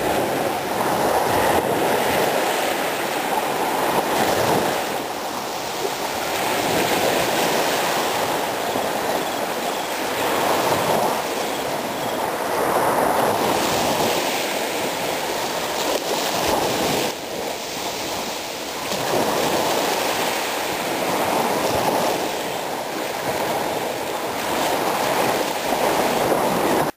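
Small waves washing up on a sandy beach: a steady rush of surf that swells and eases every few seconds.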